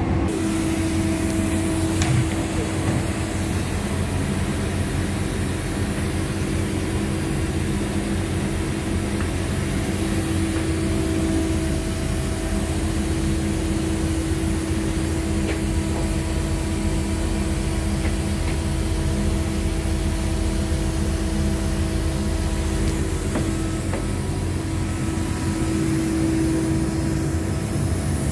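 Steady mechanical drone with a constant hum, and a single sharp click about two seconds in.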